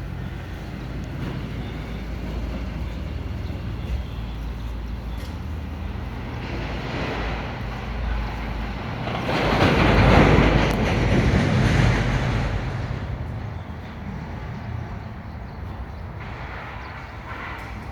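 Small portable concrete mixer running with a steady low drone. Midway, a louder, rougher rush of noise swells for about three seconds and then dies back.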